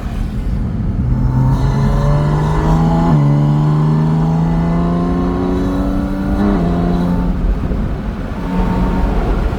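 Porsche 718 Spyder RS's 4.0-litre naturally aspirated flat-six accelerating hard with a metallic induction sound. Its pitch climbs steadily, drops suddenly at quick upshifts about three and six and a half seconds in, climbs again, then eases off near the end.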